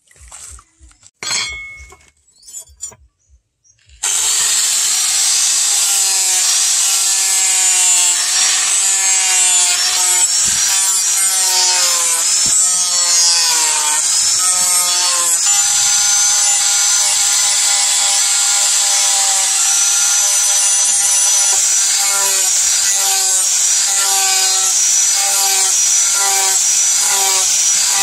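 Electric angle grinder with a sanding disc running against a steel knife blade made from chainsaw bar steel, starting about four seconds in: a steady hiss of abrasion over a motor whine whose pitch dips and recovers over and over as the disc is pressed along the blade. Before it, brief splashes and drips of water as the blade is lifted from a basin.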